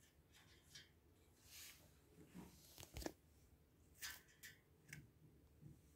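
Near silence broken by faint, scattered rustles and light ticks: a young lovebird shifting about on the newspaper lining its cage floor.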